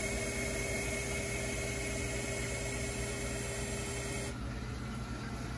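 ReefBot automated reef water tester's small motors running during a rinse cycle: a steady whine over a low hum, the whine cutting off about four seconds in.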